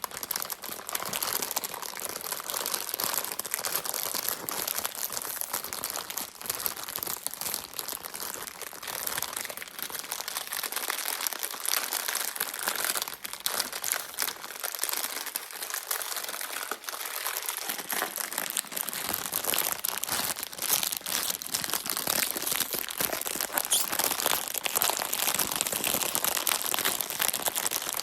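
Bubble-wrap packaging being handled and crinkled close to the microphone: a steady, dense crackling with many small clicks.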